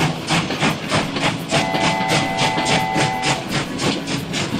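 Steam-train sound effect: an even rhythm of hissing chuffs, about five a second, with a steady chord of high whistle-like tones held for about two seconds in the middle.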